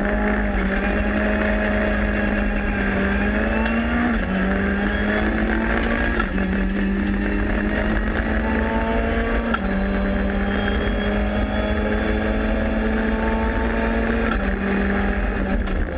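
Renault Clio 3 Cup's 2.0-litre four-cylinder engine heard from inside the cabin, held at high revs under hard acceleration, with a few brief dips in pitch as gears change.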